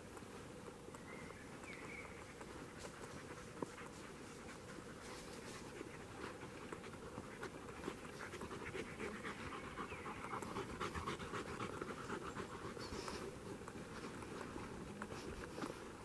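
A dog panting in quick, even breaths, louder in the second half.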